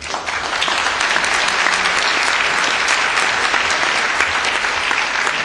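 Audience applauding: a dense, steady clapping of many hands.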